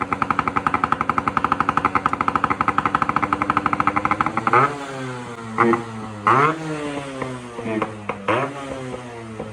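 Yamaha RX two-stroke motorcycle with a newly fitted aftermarket 'inbuilt' exhaust silencer, held at high revs with a fast, even popping pulse. About four and a half seconds in the revs drop, and the throttle is then blipped sharply three times.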